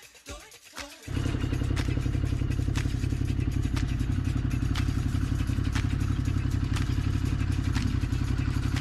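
A trail motorcycle's engine running steadily under way, cutting in abruptly about a second in after a moment of music. Scattered sharp clicks and knocks sound over it.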